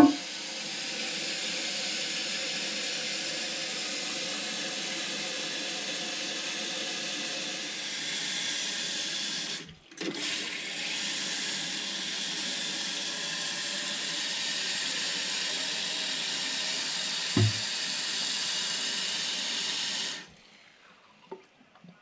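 Toilet flushing and its tank refilling through a newly fitted Fluidmaster PerforMAX fill valve: a steady rush of water with a brief break about halfway, stopping abruptly near the end.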